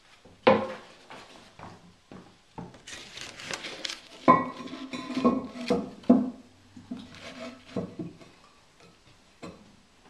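Porcelain knocking and scraping with short ringing clinks: the ceramic tank lid of a Toto Drake toilet being handled and set back on the tank. Three loud knocks stand out, about half a second, four seconds and six seconds in.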